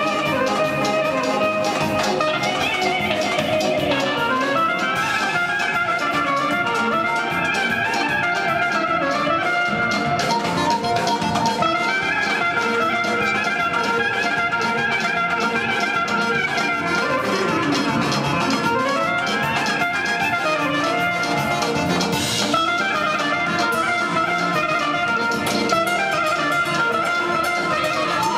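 Bulgarian wedding-style band music: a clarinet leads with fast, ornamented runs over a live band with a steady drum beat.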